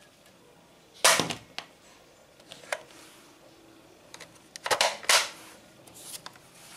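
Plastic toy gun firing with sharp snaps: one about a second in, then two close together near the end, with lighter plastic clicks between them.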